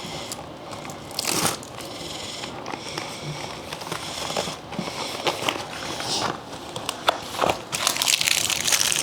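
Packing material crinkling and rustling as an item is wrapped and packed for shipping, with scattered clicks and taps; the crinkling grows denser and louder near the end.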